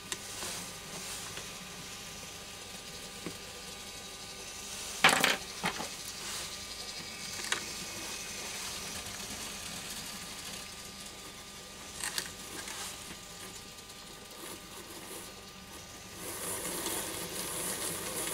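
Graham Farish N gauge 94XX locomotive's small motor and gear train struggling on a rolling road, a faint whirr broken by a few sharp clicks and taps, after long disuse. About two seconds before the end the mechanism picks up and whirs louder and brighter as it finally begins to run.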